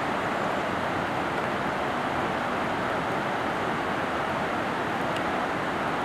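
Fast mountain river rushing through rapids around boulders: a steady, even noise of whitewater.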